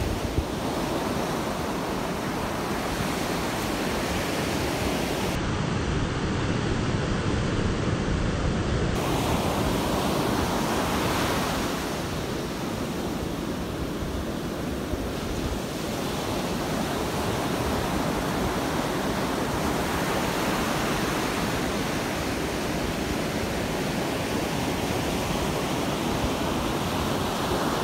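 Ocean surf breaking and washing up the beach, a steady rushing noise that swells and eases as waves come in, with wind rumbling on the microphone.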